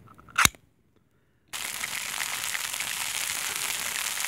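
A ring-pull tin of silkworm pupae cracks open with one sharp, loud pop. After a short silence comes a steady hiss with fine crackling: the pupae sizzling in oil in a frying pan over a campfire.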